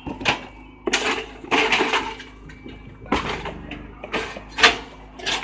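Cardboard banana boxes being folded and handled on box-forming jigs: irregular scraping and rustling of cardboard, with several knocks, the sharpest about four and a half seconds in.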